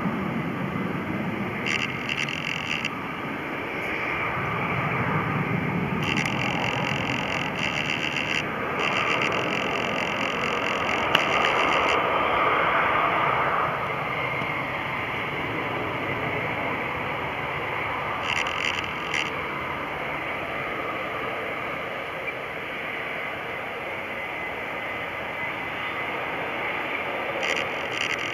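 Airbus A380's four turbofan engines (Engine Alliance GP7200s) heard from a distance as the airliner comes in to land, a steady rushing jet noise that swells a little around the middle.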